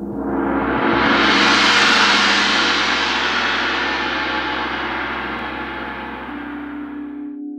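A large gong swelling up into a bright, full wash that peaks about two seconds in and then slowly fades over steady low humming tones. It cuts off abruptly near the end, leaving a few low tones ringing on.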